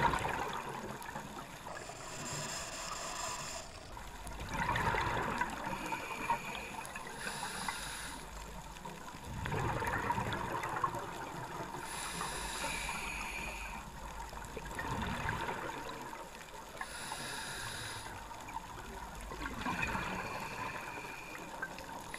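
Scuba diver breathing underwater through a regulator. A hissing inhale is followed by a burst of bubbling exhale, and the cycle repeats about every five seconds.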